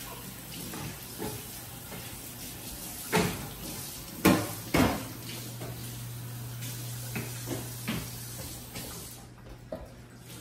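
Metal cake pan and wire oven rack clanking as the pan is set into a wall oven: three sharp clanks between about three and five seconds in, then lighter knocks and clicks as the oven door is pushed shut near the end.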